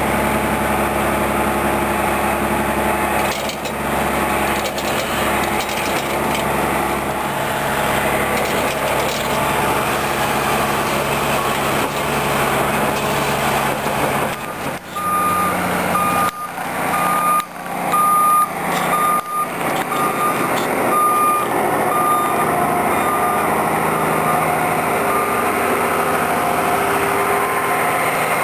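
Heavy truck engine running steadily while a reversing alarm beeps in a regular series from about halfway through, fading near the end. A few sharp knocks come in the middle.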